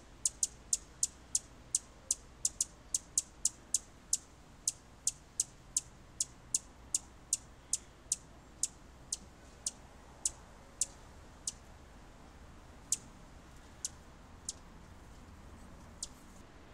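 Hummingbird giving a steady series of sharp, high chip notes, about two to three a second. They thin out and become sparse after about ten seconds, with a last chip near the end.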